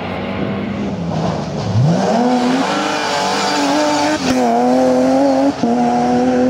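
BMW E36 coupé rally car engine at full throttle: the revs climb steeply about two seconds in, then hold high, with two brief breaks for upshifts.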